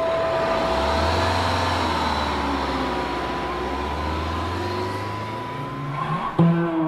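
A motor vehicle engine running with a low rumble and road noise, under a steady high tone. The rumble fades after about five seconds, and plucked guitar notes come in near the end.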